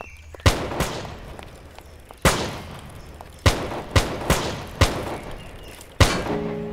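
Pistol gunfire in an irregular exchange: about six loud shots, each with an echoing tail, plus a couple of fainter cracks between them.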